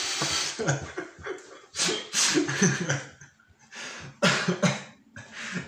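A person coughing in several bursts.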